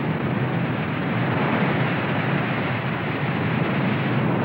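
Volcanic lava fountain erupting: a steady, deep rushing noise without any tone, unbroken throughout.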